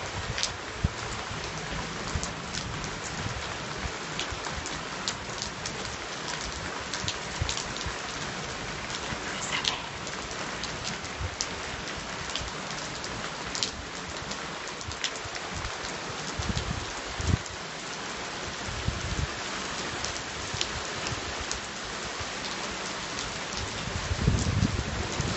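Steady rain falling, a constant hiss with many sharp drop ticks striking a nearby surface. A low rumble swells near the end.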